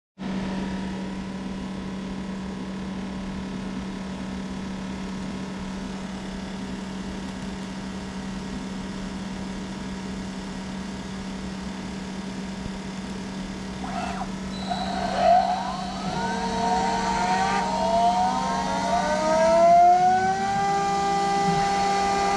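CNC router running: a steady machine hum, then from about two-thirds of the way in several pitches slide upward and settle into higher steady whines as the motors speed up.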